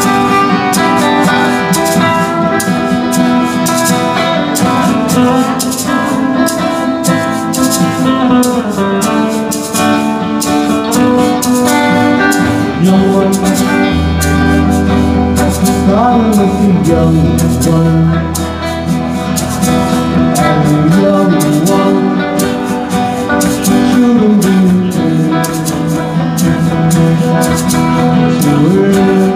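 A live band playing a 1960s pop song, guitars over a steady beat.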